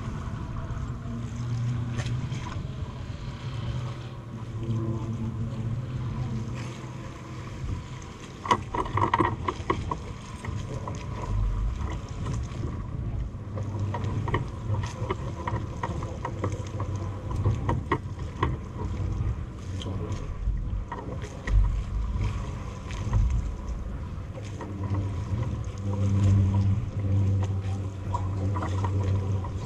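A boat engine running with a low drone that swells and fades, with scattered short knocks and some wind on the microphone.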